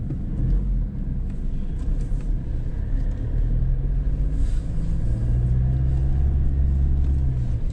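Car engine and road rumble heard from inside a moving car's cabin as it turns a corner and drives on. A steady low engine hum grows stronger about three seconds in.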